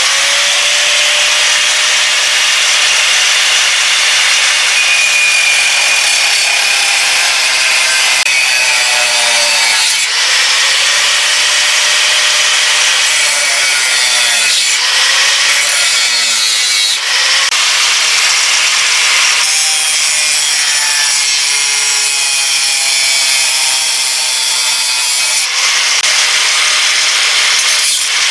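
Power tool working metal: a loud, continuous, harsh hiss with a whine that repeatedly sags and recovers in pitch as the tool is pressed into the work.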